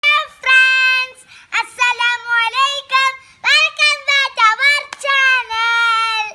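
A child's high voice singing a short tune unaccompanied, holding long notes and sliding between them, then stopping abruptly.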